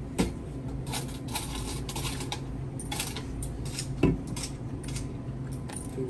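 Light clinking and clicking of small hard objects being handled during a checkout payment, with a heavier knock about four seconds in, over a steady low hum.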